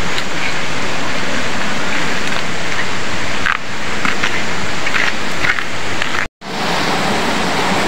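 Steady rushing of a rocky jungle stream, a loud even hiss of running water, broken by a brief silent gap about six seconds in.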